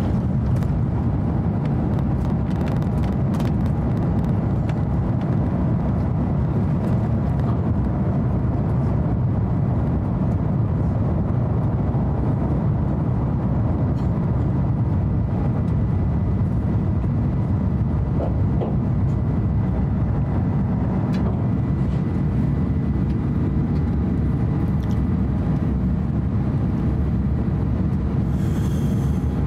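Cabin noise of an Airbus A350-900 taking off and climbing out, heard from a window seat over the wing: the steady roar of its Rolls-Royce Trent XWB engines and the rush of air, with a few faint clicks in the first few seconds.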